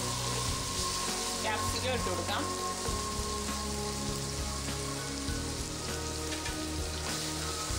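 Shredded cabbage, capsicum and carrot sizzling as they fry in oil in a pot, with the scrape and rustle of a spatula stirring them.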